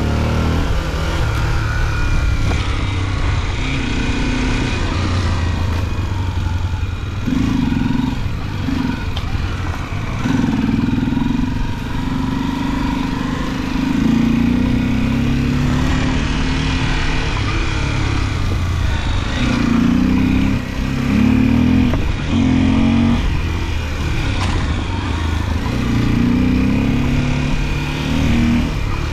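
Off-road motorcycle engine running for the whole stretch, its revs rising and falling again and again as the throttle is opened and closed.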